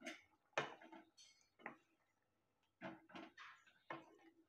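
Mutton kurma gravy bubbling at the boil in the pot: a few faint, short plops scattered over near silence.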